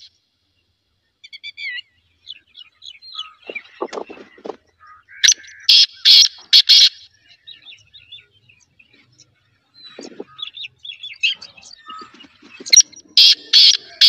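Black francolin (black partridge) calling: two loud, harsh phrases of four or five quick, grating notes, one about midway and one near the end. Softer chirps of other birds come in between.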